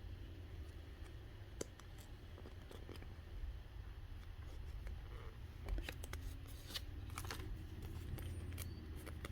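A foil Pokémon booster pack being handled and opened: a scatter of small clicks and crinkles, thickest about six to seven seconds in, over a steady low hum.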